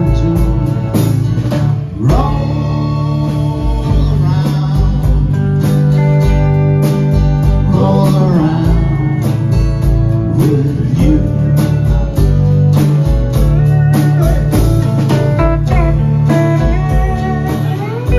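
Live band playing: drum kit with a steady beat, electric bass, strummed acoustic guitar and pedal steel guitar, with notes sliding up and down in pitch.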